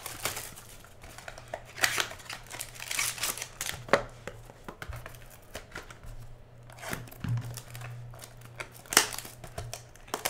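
Clear plastic shrink-wrap being peeled off a trading-card mini-box, crinkling irregularly, with sharper snaps about two, four and nine seconds in.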